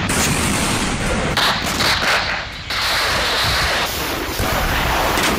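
Combat noise: dense, continuous gunfire and explosions, with a brief lull about two and a half seconds in.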